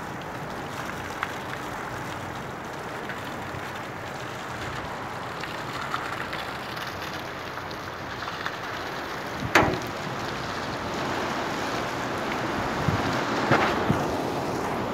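Heavy rainstorm with gusting wind: a steady rush of rain and wind, with a sharp knock about halfway through and a few fainter knocks near the end.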